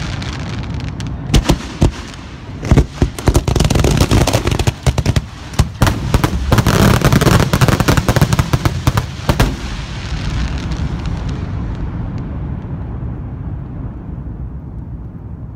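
Professional aerial fireworks finale: aerial shells bursting in a rapid barrage, densest and loudest from about three to nine seconds in. The shots then stop, leaving a fading low rumble.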